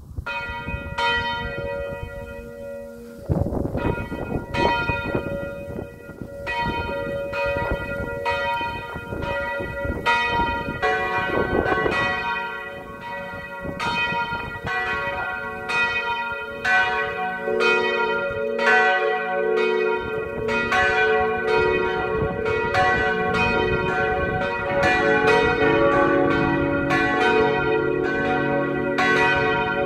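Three bronze church bells cast by Otto in 1964, tuned cis, fis and ais', swinging and ringing together as a partial peal calling to Sunday service. The strikes start sparse and grow denser as the bells join in, with a deeper bell entering about halfway through and the deepest near the end.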